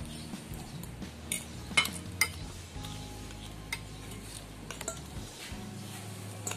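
Cutlery clinking against a dish while eating noodles and rice: a handful of sharp, scattered clinks, the two loudest about two seconds in.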